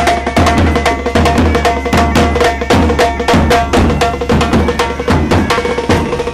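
Wedding brass band playing: snare and bass drums beat a fast, busy rhythm with a low thud about twice a second, under held notes.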